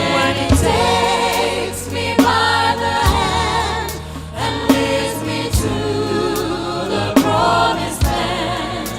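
Gospel vocal group singing in harmony over an instrumental accompaniment, with a steady bass and drum hits roughly once a second.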